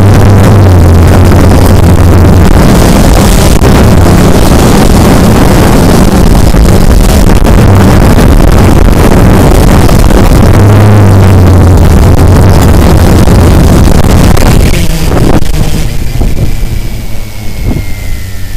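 Small multirotor drone's electric motors and propellers running very loud and steady, heard from a camera mounted on the drone, with a low hum under a broad buzz. Near the end the drone comes down close to the ground and the sound turns uneven and drops in level, leaving a faint, slightly falling whine.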